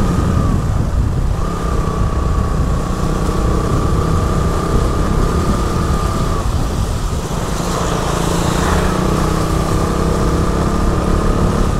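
Motorcycle engine running steadily under way on a wet road, with wind and tyre noise. The rider takes the even running as a sign the bike, which had been stalling repeatedly, is behaving again. A brief rush of noise comes about eight seconds in.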